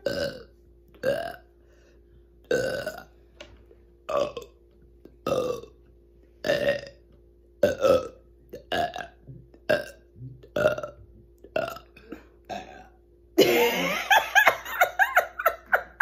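A woman burping on command: a string of about twenty short, abrupt burps, coming faster after about seven seconds. Near the end they give way to her laughing.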